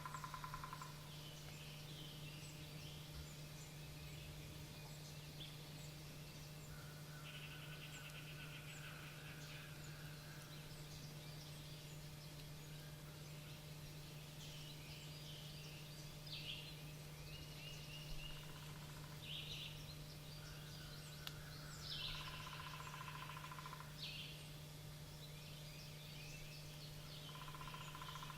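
Faint chorus of wild songbirds calling: several trills lasting a second or two and scattered high chirps, over a steady low hum.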